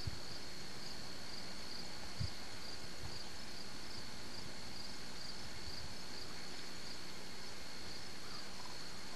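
Insects chirping: a steady high trill that pulses about twice a second, with a faint knock about two seconds in.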